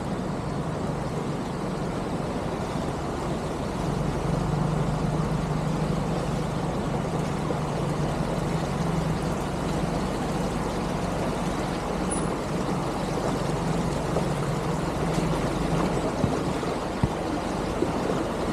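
A motor vehicle driving, its engine running at a steady drone under continuous road noise, with a few light knocks near the end.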